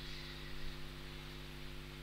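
Steady low electrical hum with a constant hiss: room tone with nothing happening.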